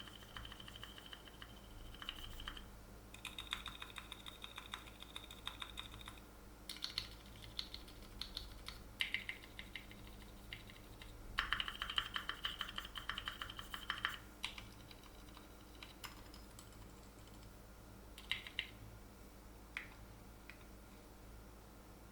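Typing on a mechanical keyboard fitted with silent switches: four runs of quick, dense keystrokes, thinning to a few scattered keypresses after about fourteen seconds.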